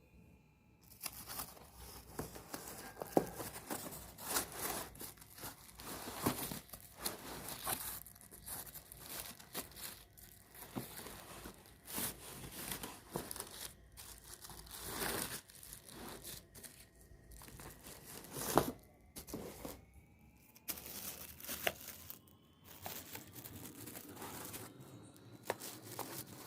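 Parcel packaging being torn open and crinkled by hand: an irregular run of tearing, rustling and sharp crackles.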